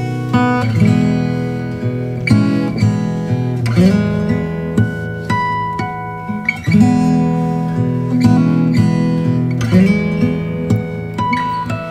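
Instrumental background music with plucked-string notes and a steady run of chords.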